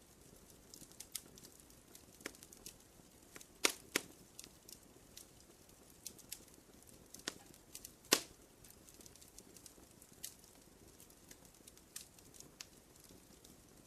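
Wood campfire crackling: a run of irregular small snaps over a faint low hiss, with a few louder pops about a quarter of the way in and again a little past halfway.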